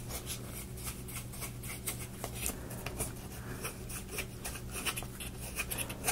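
Laser-cut plywood parts handled and turned by fingers: light, irregular clicks and scratchy rubbing of wood on wood as a freshly greased hub is worked around in its disc.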